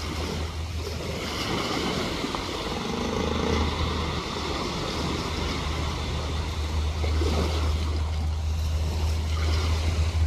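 A motor running with a steady low hum, over wind and surf noise.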